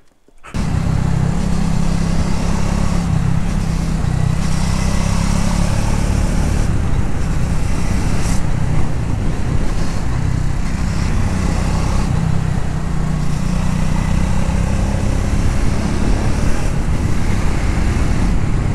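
Triumph Speed 400's single-cylinder engine running steadily as the motorcycle is ridden, with a steady rushing noise over it. The sound cuts in sharply about half a second in.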